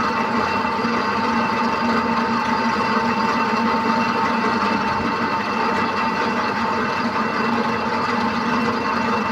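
Mini crane (monkey lift) hoist motor running steadily, a constant hum with a fixed higher whine.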